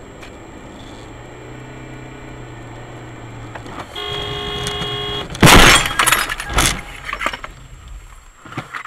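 Car interior noise, then a car horn blares for about a second, followed by a loud crash about five and a half seconds in and a second impact a second later, with crunching and smaller knocks as the car ploughs off the road into snow.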